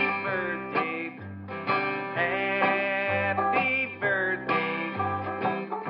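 Background music: country-style tune on plucked guitar with a steady bass line.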